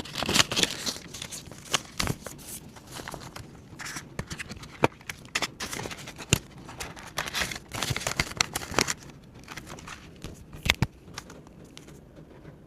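Hands handling paper banknotes and crinkly savings stationery: irregular rustling and crinkling with sharp clicks and taps, thinning out over the last few seconds.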